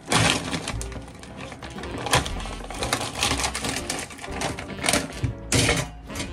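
Plastic bags and packaging crinkling and rustling in several bursts, as groceries are handled, over background music.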